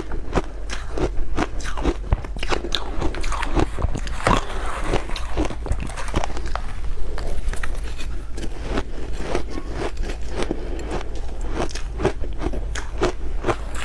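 Ice being bitten and chewed close to the microphone: an unbroken run of irregular sharp crunches and cracks, several a second, over a faint low hum.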